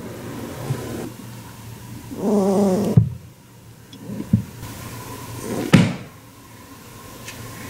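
Holland lop rabbit giving one short, pitched angry grunt about two seconds in. Sharp knocks follow around three seconds in, again at four, and a louder one near six seconds.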